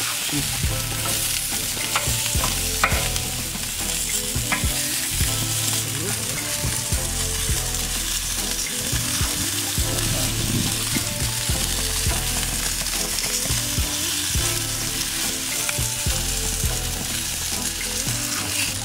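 Chicken quarters sizzling steadily on hot grill grates, with a few sharp pops or clicks in the first few seconds.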